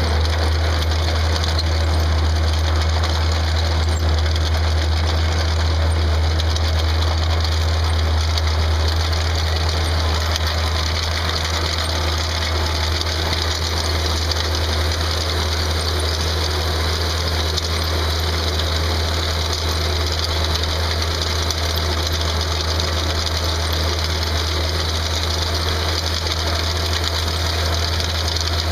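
Engine of a Ditch Witch 8020 plow/trencher/backhoe running steadily with a deep, even hum.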